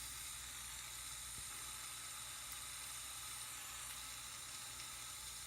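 Jeweler's soldering torch flame hissing steadily as it heats the joint to tack-solder one side of a gold ring shank.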